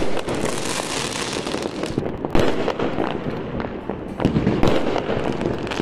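Fireworks going off across the neighbourhood: a continuous crackle of firecrackers with several sharp bangs from bursting aerial shells, one right at the start and more about two and a half and four and a half seconds in.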